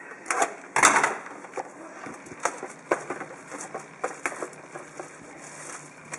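Plastic shrink wrap being torn and crinkled off a trading card box: a loud rip about a second in, then scattered crackles.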